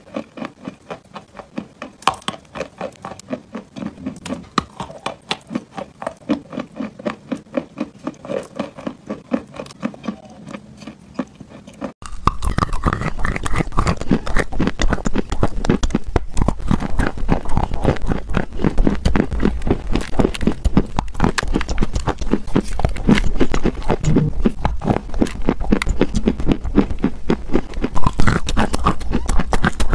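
Close-up crunching and chewing of dry edible clay chunks, a steady run of crisp cracks at about three a second. About twelve seconds in, the sound jumps to a louder, denser crunching with a low rumble underneath, close-miked at the mouth.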